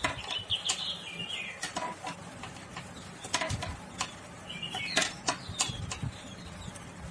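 Knitting needles clicking irregularly against each other as stitches of cloth-strip yarn are worked, with birds chirping in the background in a couple of short bursts.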